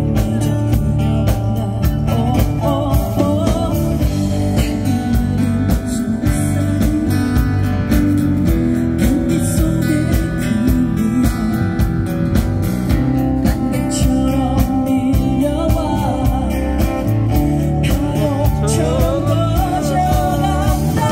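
Live band music with a steady beat and a singer's voice. The voice is heard about two seconds in and again over the last several seconds.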